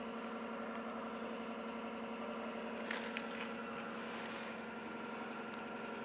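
A steady hum with fixed tones, with one light click about three seconds in.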